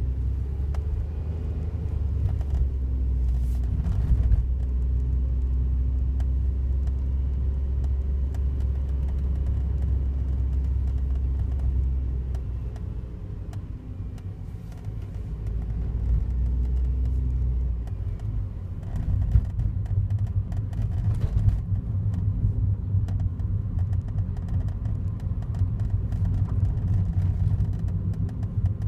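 Daihatsu Wake running, a steady low rumble with a faint hum above it; it eases about halfway through and comes back rougher about two-thirds of the way in.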